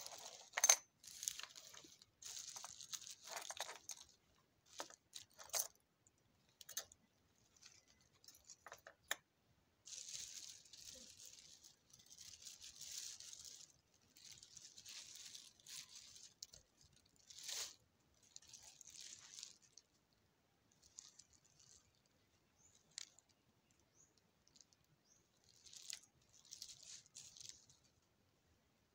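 Thin plastic bag rustling and crinkling in repeated bursts as cloth is pulled out of it, with a few sharp clicks in the first half.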